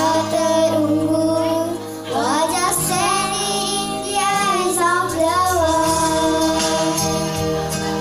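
A child singing a song into a microphone over a recorded backing track, the sung melody rising and holding wavering notes over steady accompaniment.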